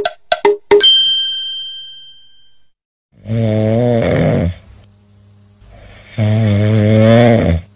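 Two long snores, about three seconds apart, from a white cat lying asleep on its back, with faint breathing between them. Just before, a few quick clicks end in a bright ding that rings and fades over about two seconds.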